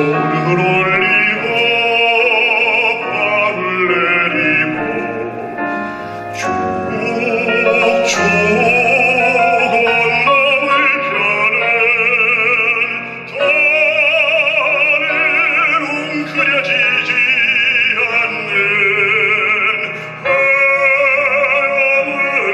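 Baritone singing a Korean art song in full operatic voice with wide vibrato, over piano accompaniment.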